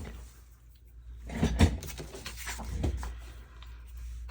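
Craft materials handled on a work surface: rustling with a few knocks, loudest about a second and a half in and again near three seconds, over a steady low hum.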